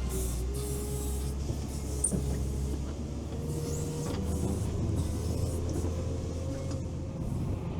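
All-terrain vehicle's engine running steadily under way, a low drone with a thin steady whine above it.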